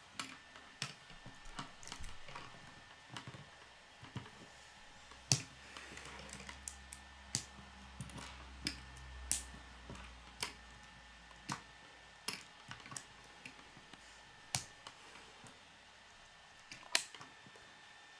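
K'nex plastic rods and connectors clicking and snapping together as they are assembled, with knocks against a wooden tabletop: irregular sharp clicks.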